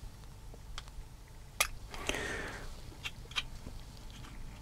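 Hard plastic kit part being trimmed with a hand cutting tool: a sharp snip about one and a half seconds in, a short rustle just after, then a few faint clicks.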